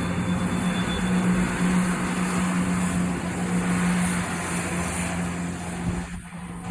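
East Midlands Railway diesel multiple unit running through the station: a steady engine drone over rumbling running noise, falling away near the end.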